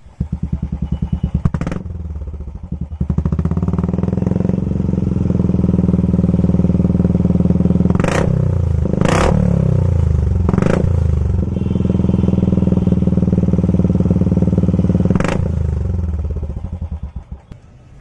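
Royal Enfield Classic 350 BS6 single-cylinder engine running through an aftermarket M6 exhaust silencer, in a sound test of that silencer. It is blipped three times in quick succession around the middle, then once more. Near the end the exhaust pulses slow and the engine dies away.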